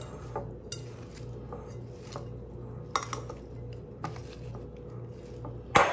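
Metal tongs tossing a chopped vegetable slaw in a glass mixing bowl: scattered clinks and knocks of the tongs against the glass, with the loudest knock near the end.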